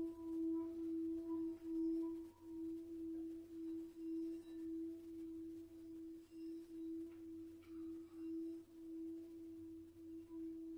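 Tibetan singing bowl sustaining one low ringing tone with faint higher overtones. Its loudness wavers in a steady pulse, about twice a second.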